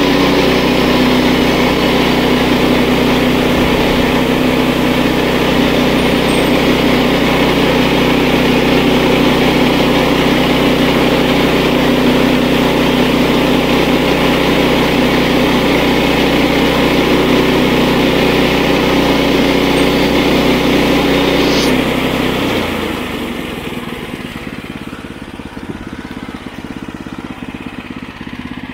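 Kohler gas engine on a Woodland Mills bandsaw mill running steadily at high throttle; about 22 seconds in it winds down to a quieter idle.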